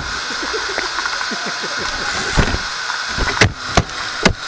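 RC car running, heard on board: a steady drivetrain hiss with small rattling clicks from the chassis, then several sharp knocks in the last second and a half as the car hits and tips over.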